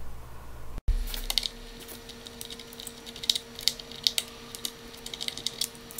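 Scattered light clicks and ticks of hands working at the plastic knob on top of a router to get it off. A faint steady hum sits underneath.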